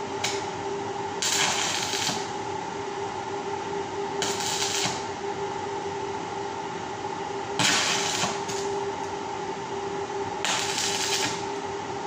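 Stick arc welding tacking a round steel-rod grill grate: about five short sizzling arc bursts, each under a second, a few seconds apart, over a steady hum.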